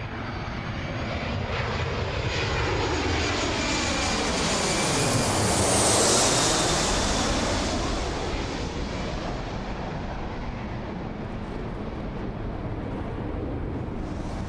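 Airplane on landing approach passing low overhead, its engine noise swelling to its loudest about six seconds in with a high whine on top, then easing off into a steady rumble.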